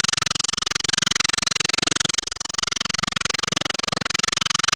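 Steel axe edge being ground freehand against the coarse-grit disc of a home-made disc sander: a harsh, gritty grinding with a rapidly flickering level as the blade chatters against the abrasive.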